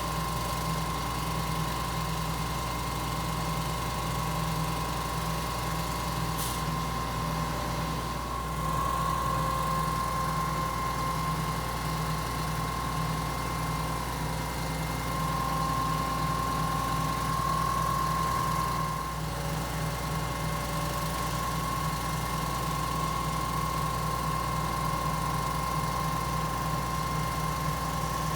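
Putzmeister 47-metre truck-mounted concrete pump running: a steady diesel engine drone with a fast low pulsing and a constant high whine over it.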